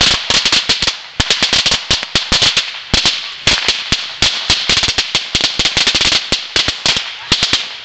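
A roll of 100 Black Cat firecrackers going off in a rapid, irregular string of sharp bangs, several a second, ending just before the close.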